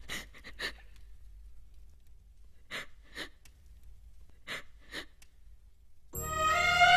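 Quiet room with a few soft, brief rustles or steps in pairs about half a second apart. About six seconds in, orchestral string film score music comes in, much louder.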